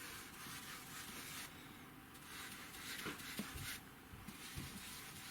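Quiet room tone with faint scratching and a couple of soft knocks; no note is played.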